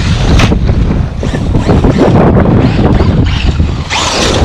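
Loud wind buffeting on the microphone over the running of a Traxxas Unlimited Desert Racer RC truck driven hard on full throttle.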